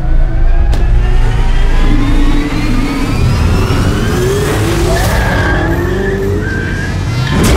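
Sports car engine accelerating, its note rising steadily in pitch, then tyres squealing in wavering bursts, with a sudden loud burst near the end.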